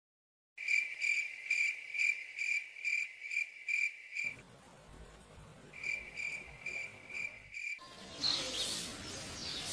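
Crickets chirping in a regular pulse of about three high chirps a second, dropping out for a moment about four seconds in and then resuming. Near the end the chirping stops and a noisier, hissing sound takes over.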